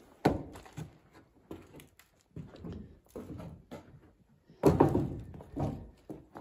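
A string of irregular thumps and scuffs, the loudest just after the start and around five seconds in.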